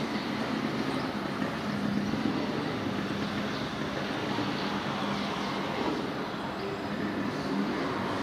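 Steady city street traffic, with vehicle engines running and going by on the avenue.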